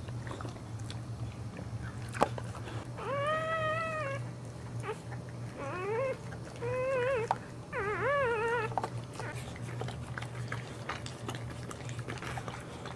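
Newborn Boxer puppy crying: four high, wavering, mewing cries between about three and nine seconds in, over small wet clicks of the mother licking it clean.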